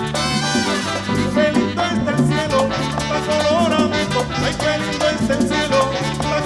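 Merengue band playing an instrumental passage: a melody line over a bass line and fast, steady percussion with shakers.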